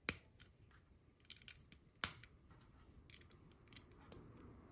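LEGO plastic pieces being pressed together by hand: sharp clicks as plates snap onto studs. The two loudest snaps come just after the start and about two seconds in, with smaller clicks between and near the end.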